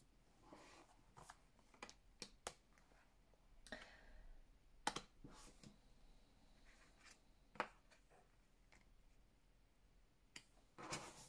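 Tarot cards being handled and laid on a table: a few light clicks and taps as cards are set down, with brief soft rustles of cards sliding, between stretches of near silence.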